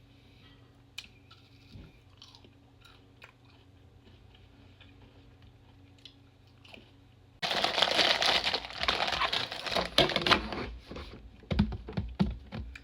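Close-miked eating of chocolate-covered potato chips: a few faint clicks at first, then, a little past halfway, loud, dense crunching as the chips are bitten and chewed.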